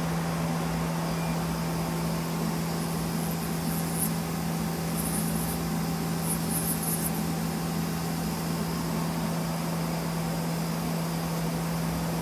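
Okuma Spaceturn LB3000-EXMYC CNC lathe running with a steady, even hum, one constant low tone over a background hiss. Three brief, faint high hissing spurts come between about three and seven seconds in.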